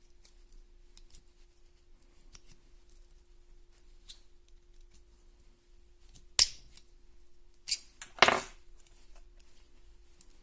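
Small hard clicks and clacks of a Victorinox pocketknife, its plastic scale and a small screwdriver being handled. Faint ticks, then three sharp clicks in quick succession about six to eight seconds in.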